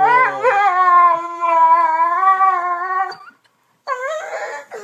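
A dog howling: one long, wavering howl of about three seconds, then after a brief pause a second, shorter howl starts near the end.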